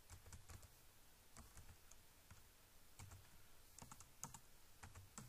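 Faint computer keyboard typing: a string of quick, uneven keystrokes with short pauses between.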